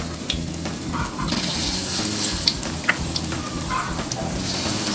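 Corn fritter batter deep-frying in a wok of hot oil: a steady sizzle with scattered sharp pops.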